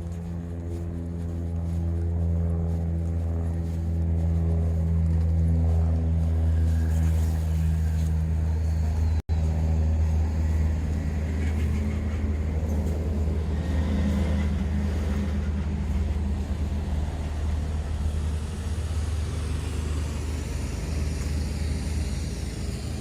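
Steady low droning hum of a large vehicle or machine, with a stack of even tones that fade into a rougher rushing noise partway through. There is a momentary dropout about nine seconds in.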